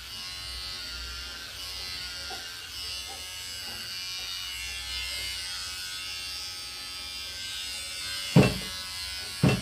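Electric hair clippers running with a steady buzz as they shave a German Shepherd's coat. Two loud knocks come near the end.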